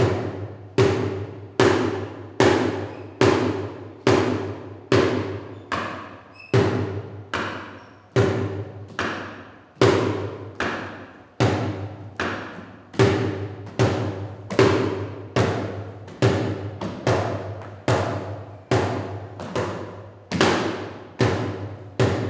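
Plastic bucket drummed with wooden drumsticks: a steady beat of about one strike every 0.8 s with lighter hits in between. Each strike rings on briefly.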